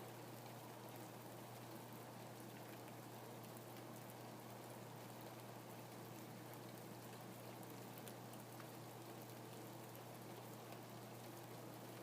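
Faint, steady rain falling, with scattered individual drops ticking through the even hiss.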